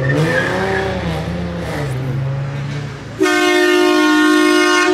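A car engine rising and falling in pitch, then running steadily, followed about three seconds in by one long, steady car horn blast, the loudest sound, which cuts off suddenly near the end.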